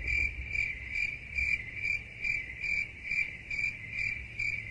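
Cricket chirping as an edited-in comic 'crickets' sound effect, an even high chirp repeating about twice a second over a low hum, marking the cafeteria as empty.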